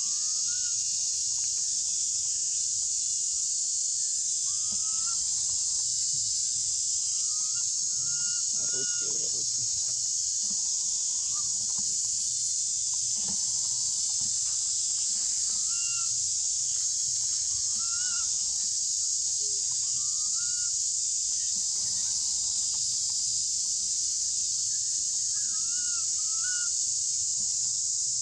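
Steady high-pitched drone of a forest insect chorus, with short rising squeaky calls every few seconds.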